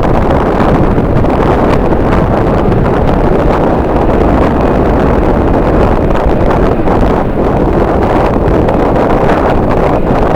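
Strong wind buffeting the microphone: a loud, steady rushing rumble with no distinct tones.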